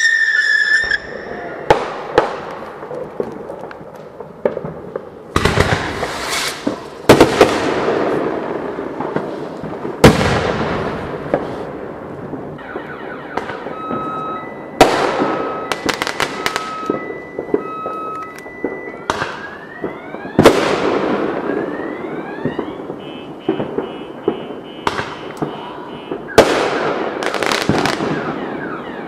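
Fireworks going off in a string of sharp bangs, each trailing off in crackle, with whistling shells gliding down at the start and up again later. In the middle a car alarm sounds in repeated pulses of steady tones.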